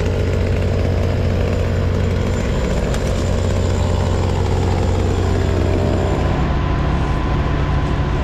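Heavy engine of a crane running steadily, a loud low hum with a band of higher noise that sinks slightly in pitch through the middle.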